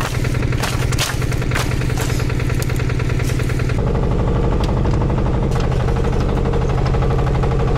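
Walk-behind tiller engine running steadily while towing a loaded trailer, with repeated knocks and rattles over the first half. The engine note changes about halfway through, then runs evenly.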